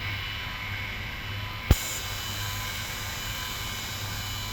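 The model mine's two PWM-controlled conveyor motors running steadily, a low hum with a thin whine over it. A single sharp click a little under two seconds in.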